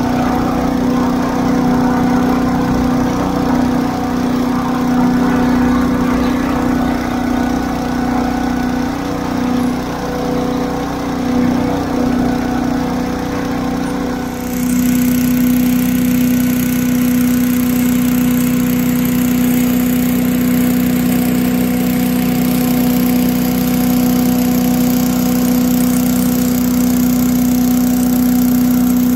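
Tractor-mounted 8 hp Little Wonder leaf blower engine running steadily, together with the compact tractor's engine. About halfway through the sound changes abruptly and then holds steady again.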